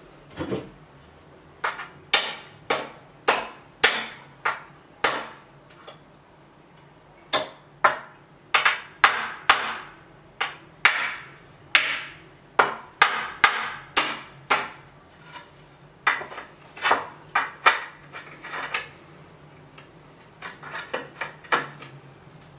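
Claw hammer striking iron nails in a wooden board to knock them out: a long series of sharp blows, about two a second, then a short pause and a few lighter taps near the end.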